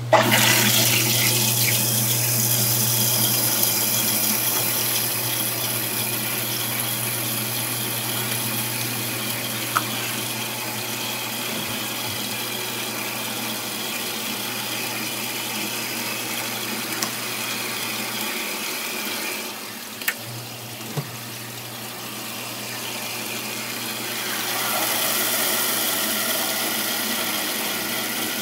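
Tap water running steadily, starting abruptly, easing about two-thirds of the way through and getting louder again near the end. A low steady hum runs underneath, with a few light clicks.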